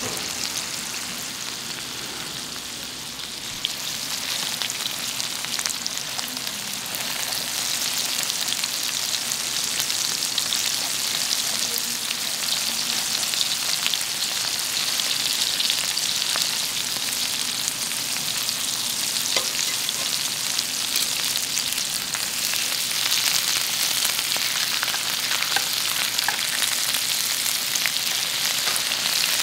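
Beef small intestines (gopchang) sizzling in their fat on a hot pan, with small pops throughout. The sizzle grows louder a few seconds in and then holds steady.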